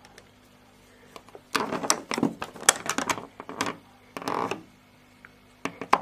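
Programme selector dial of a Zanussi ZWF 1621 W washing machine being turned by hand toward the rinse setting: a quick run of irregular clicks from about a second and a half in, a brief rubbing scrape, and two more clicks near the end.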